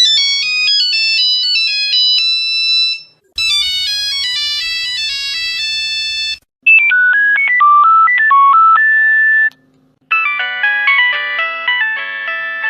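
Nokia mobile phone ringtones played one after another: four short electronic melodies, each cut off abruptly after about three seconds, with a brief silence before the next.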